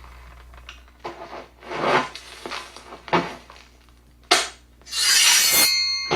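A series of rough scraping strokes, about five, the last one longer and louder and leaving a metallic ring that carries on at the end.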